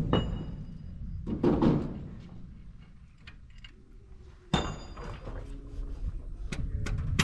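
Hand tools knocking and clinking on the exposed top of an excavator's diesel engine, with one sharp metallic clank about four and a half seconds in that rings briefly.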